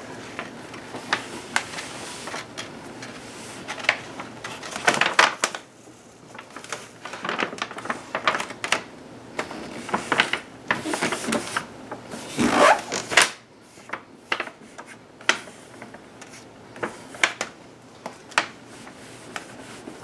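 Heavy vinyl contact paper crackling and crinkling as it is released from its backing and pressed onto a dishwasher door. Irregular sharp snaps are broken by a few longer rasping stretches of peeling.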